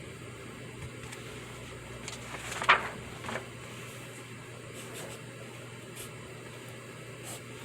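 Pencil writing on paper over a steady background hum and hiss, with scattered faint scratches and one brief, much louder scrape or rustle about two and a half seconds in.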